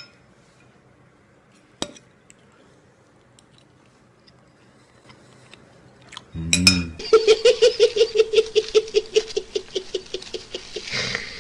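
Quiet at first, with a single sharp click about two seconds in. From about six seconds in, a man laughs in a rapid, giggling laugh of about six pulses a second, held on one high pitch, until near the end.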